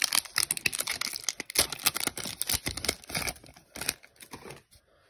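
Foil wrapper of a trading card pack being torn open and crinkled: a dense crackle that dies away about four and a half seconds in.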